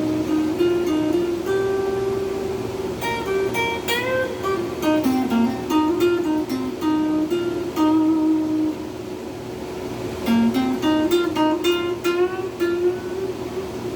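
Les Paul-style electric guitar played through an amp: single-note lead phrases with string bends over a held note, with a short lull in the middle.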